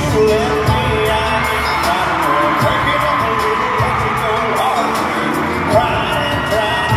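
Live country band playing, with a man singing lead over acoustic guitar, banjo and drums.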